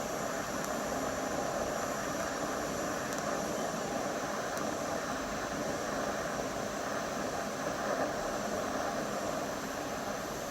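TIG welding arc running steadily, a continuous even hiss with a faint hum, as weld is built up on the snapped end of a broken stud.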